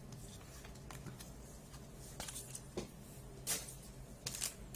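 Trading cards being handled and slid past one another, giving a few short, soft rustles in the second half over a low steady room hum.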